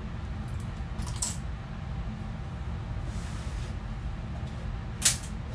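Small clinks and rustles as accessories are taken off, then a short sharp rustle, the loudest sound, about five seconds in as a hat is lifted off the head; a steady low rumble underneath.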